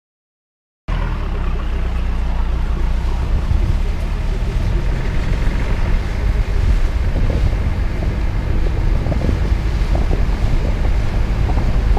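Car driving on a wet road, heard from a camera mounted on its roof: a steady low rumble of wind buffeting the microphone over the engine and tyres, starting suddenly about a second in.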